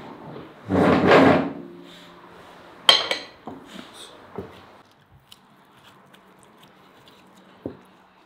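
Crockery and tableware handled on a wooden table as fried fish is served: a dull bump and scrape about a second in, a sharp ceramic clink near three seconds, then a few lighter knocks.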